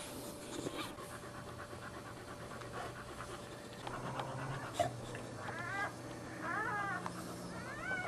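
Boxer mother dog panting hard while whelping. Near the end, three short high-pitched whimpers from newborn puppies.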